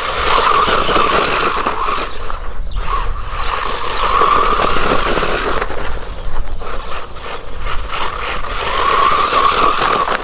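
WLToys 144001 1/14 RC buggy's brushed electric motor and drivetrain whining as it is driven on dirt, the whine swelling and fading with the throttle and dipping briefly twice.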